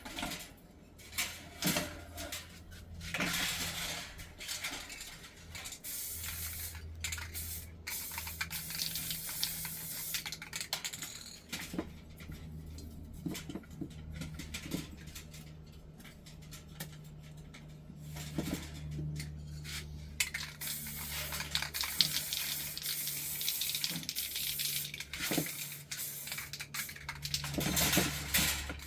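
Light clinks and taps of aluminum crab-scoop parts being handled and worked by hand, with stretches of hiss and a low steady hum.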